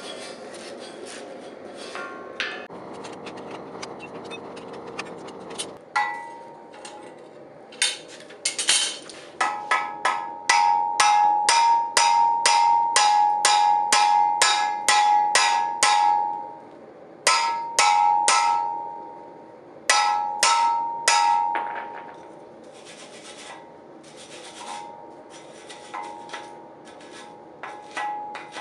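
A wire brush scrubbing a red-hot railroad spike for the first few seconds, then a hammer striking the hot spike on a steel anvil in runs of quick blows, about three a second, each one ringing. The blows are softer over the last several seconds.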